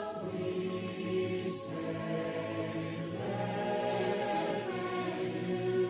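Choir and music holding long sustained chords as a song closes, moving to a new chord about three seconds in.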